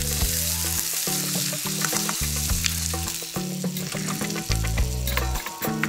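Sweet potato hash sizzling in a hot frying pan while a metal spoon scrapes and taps against the pan as it is served out. Background music with a bass line runs underneath.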